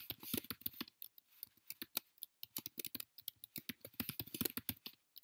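Fast typing on a computer keyboard: a quick run of key clicks, several a second, with a brief pause about a second in, as a new password is typed and then retyped.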